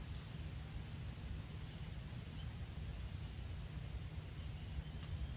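Quiet outdoor ambience: an uneven low rumble on the microphone under a steady high-pitched insect drone.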